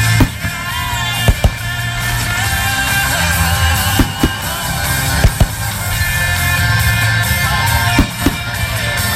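Rock music with singing plays throughout, crossed by about ten sharp bangs of aerial firework shells bursting, many of them in quick pairs.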